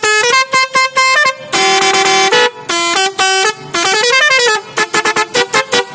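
A bus's multi-tone horn playing a changing pattern. It gives rapid stuttering notes, then held chords that step in pitch, a rising-and-falling siren-like sweep about four seconds in, and more quick stuttering notes at the end.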